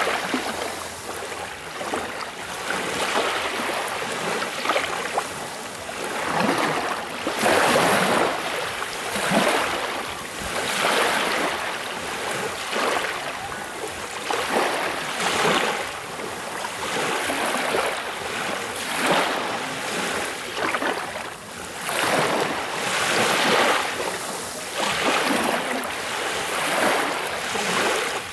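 Small waves breaking and washing up a sandy shoreline close by, each one a hissing swell of foam and water that rises and fades every second or two.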